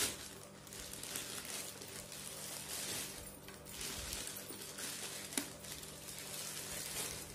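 Clear plastic packaging crinkling and rustling in irregular handfuls as it is worked off a mixer grinder's motor base.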